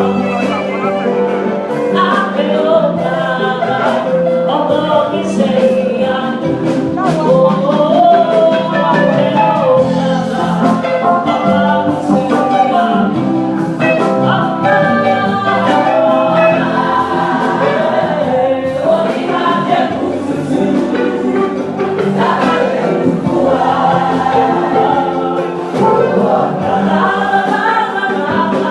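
Church choir singing a gospel anthem in several parts, with steady sharp beats running under the voices.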